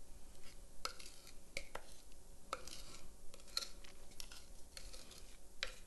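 Spatula scraping thick brownie batter out of a mixing bowl into a foil baking pan: quiet, irregular scrapes and light clicks.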